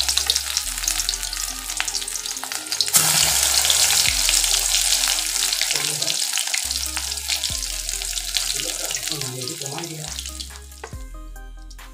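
Battered pumpkin-leaf fritters frying in hot mustard oil in a kadai: a steady loud sizzle that surges about three seconds in as another fritter goes into the oil, then fades near the end. Soft background music plays underneath.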